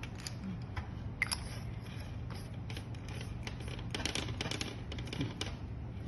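Scattered small plastic clicks and taps as the parts of a black plastic waterproof fibre-optic connector are handled, twisted and fitted together by hand, over a low steady hum.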